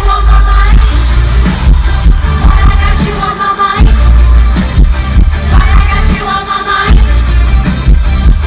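Live pop music from a concert stage, heard loud from the audience: heavy bass, drums and a sung melody.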